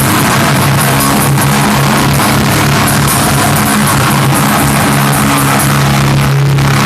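Rock band playing live and loud: guitar, bass and drums with cymbals washing over a held low note.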